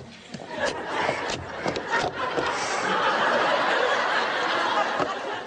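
Studio audience laughing, swelling within the first second or so and holding steady, with a few sharp knocks in the first couple of seconds.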